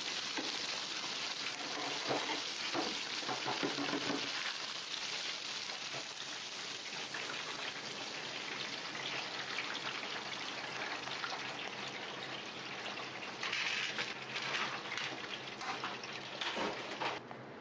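Breaded schnitzel deep-frying in a basin of hot oil: a steady sizzling, like rain on a surface.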